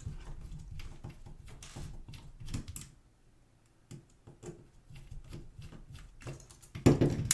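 Small plastic parts of a digital camera's lens assembly being handled and pried apart: a run of light clicks and taps, with a louder sharp clatter near the end.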